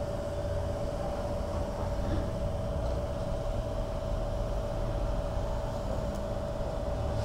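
Petrol pump running with a steady, even whine while fuel is pumped into a motorcycle's tank, over a low rumble.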